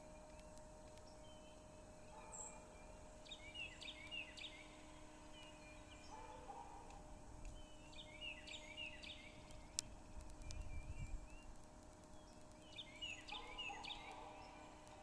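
Faint bird calls: a rapid rattling series of chirps, repeated about every five seconds three times, over a faint steady hum. A single sharp click comes near the two-thirds mark, followed by a brief low rumble.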